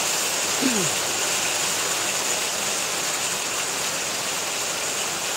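Heavy rain pouring steadily onto a corrugated carport roof, a dense, even hiss that drowns out speech.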